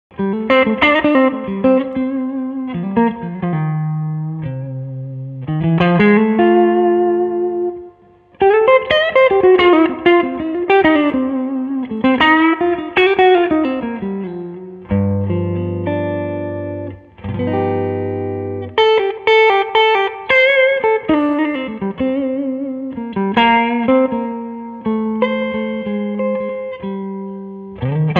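Electric guitar, an SVL Strat-style guitar through a Two-Rock Classic Reverb Signature tube amp, playing improvised blues lead: single-note phrases with string bends, a brief break about eight seconds in, and a pair of held chords around the middle.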